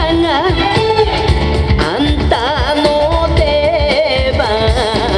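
Japanese folk-style dance song: a solo singer with a strong, wavering vibrato over band accompaniment with a steady beat.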